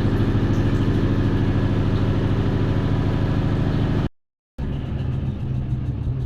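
TCL 9 kg front-load washing machine running its spin, a steady motor hum with a fast, even pulsing from the turning drum. The sound breaks off for a moment about four seconds in and comes back a little lower and rougher.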